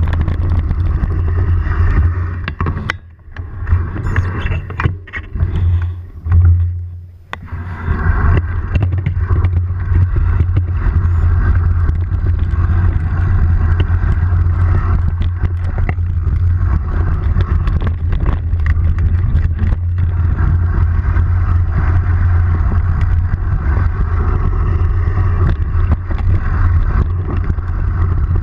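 Off-road motorcycle engine running steadily while riding a dirt trail. About three seconds in the throttle is backed off for a few seconds, with a few short blips, before the steady running picks up again.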